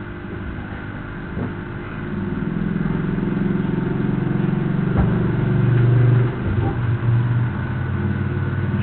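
A motor vehicle's engine running close by. Its low hum grows louder over a few seconds and drops back about six seconds in, with a single knock at about five seconds.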